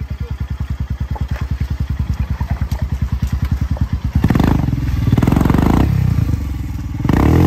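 Motorcycle engine idling with a fast, even chugging beat, then revved hard about four seconds in. The revs rise and fall, dip briefly and surge again near the end, as the bike is worked over rocks in a stream crossing.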